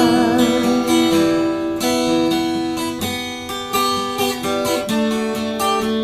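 Background music: an acoustic guitar strumming chords in a short instrumental passage between sung lines.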